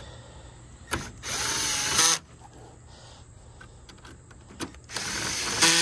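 Power drill with a 10 mm socket on an extension driving in the bolts along the top of a Ford Bronco's grille, its clutch set low so as not to over-tighten. It makes two short runs of about a second each, with a sharp click just before each run.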